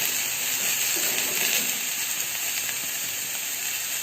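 Sliced onions sizzling in hot oil in a kadai as they sauté, a steady frying hiss.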